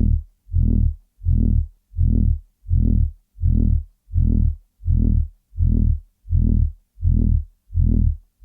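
Loud, low, buzzing throb pulsing on and off at an even pace, about three pulses every two seconds, each lasting about half a second with silence between.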